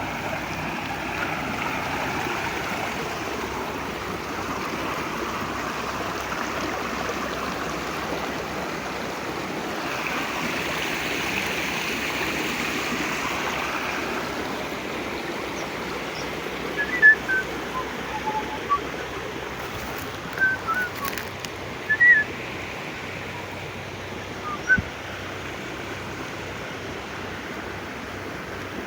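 River water rushing steadily over rocks. In the second half there are a few short, high bird chirps.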